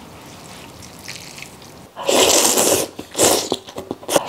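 Qishan saozi noodles being slurped from a bowl of sour-spicy soup: loud, hissy sucking slurps about two and three seconds in, with small wet clicks between them. The first two seconds are quiet.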